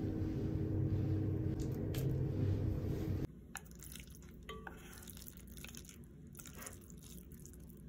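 A loud steady low hum for about three seconds, then it cuts off. After that, chopsticks stir and lift saucy instant noodles in a small pot, with soft squishing and light clicks against the pot.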